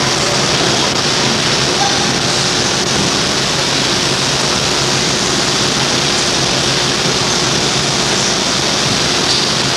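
Loud, steady hiss spread evenly across the whole range: the noise of an old videotape recording, with no other sound standing out above it.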